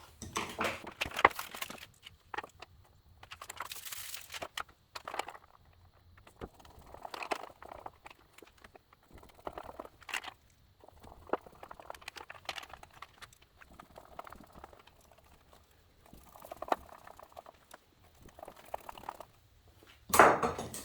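Small metal chest latches being handled and fitted onto a wooden toolbox: scattered clicks, taps and short scrapes of hardware against wood, with a louder knock near the end.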